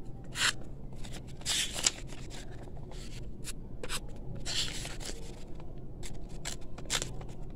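Small piece of notebook paper handled by hand, rustling and crinkling as it is folded, in several short bursts with light clicks between.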